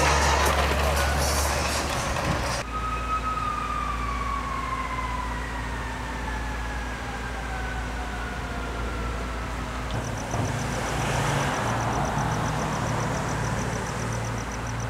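A siren tone slowly falling in pitch for several seconds. It follows a noisy stretch that cuts off abruptly about two and a half seconds in. After another abrupt change about ten seconds in come a rapid high pulsing and a low pulsing hum.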